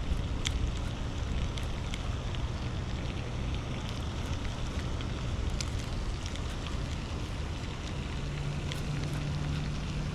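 Wind noise on the microphone, a steady low rumbling hiss with scattered faint clicks; a faint low hum joins in near the end.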